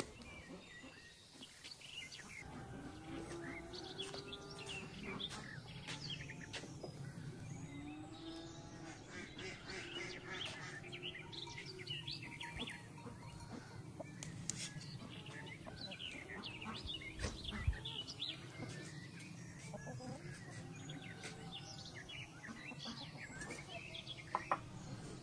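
Small birds chirping throughout, with chickens clucking in lower calls now and then.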